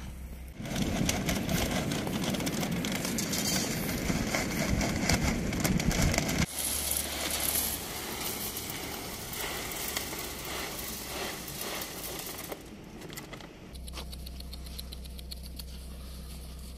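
A loud low rumbling noise for the first several seconds, then dry pet kibble rattling as it is poured from a foil bag into a dog feeder.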